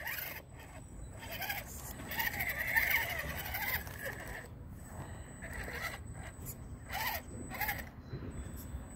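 ECX Barrage Gen 2 RC crawler's electric motor and gearing whining in short stretches as it crawls over logs, the pitch rising and falling with the throttle, with scattered clicks and knocks of the tyres and chassis on the wood.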